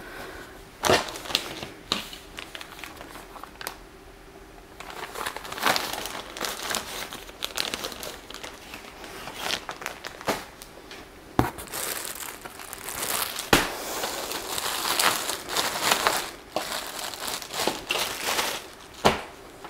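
Plastic packaging crinkling and rustling as a garment bag is handled and opened. It comes in irregular bursts with several sharp crackles, sparse for the first few seconds and busier after that.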